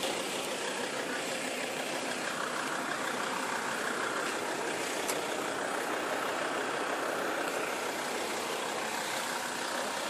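Car engine idling, heard as a steady, even noise, with a faint click about five seconds in.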